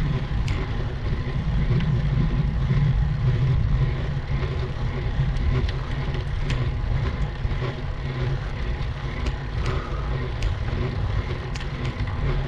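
Road bicycle climbing: a steady low rumble of wind and road noise on a bike-mounted microphone, with faint sharp clicks now and then.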